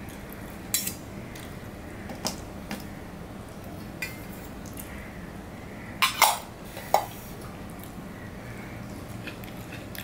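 Stainless-steel dishes clinking: a few light knocks, then a louder cluster of clanks about six seconds in and one more sharp clink just after, as a small steel bowl is emptied onto the plate and stacked on another bowl.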